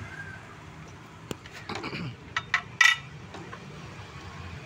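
Several short, sharp metallic clinks and taps as hand tools and loose metal parts are picked up and set down, the loudest about three seconds in.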